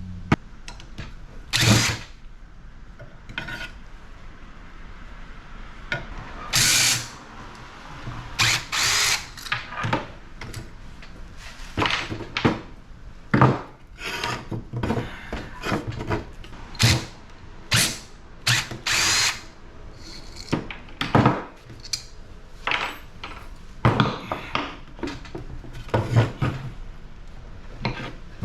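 Power drill run in many short bursts, backing out screws and nuts from a scrapped air-conditioning unit's casing.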